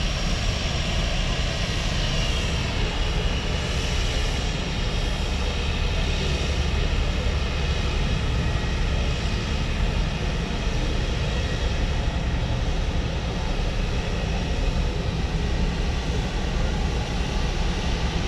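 Seaplane engine running steadily, a continuous low drone.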